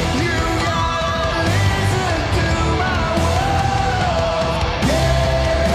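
Live heavy metal band playing: a male rock singer belts a line with long held notes over distorted electric guitar, bass and drums.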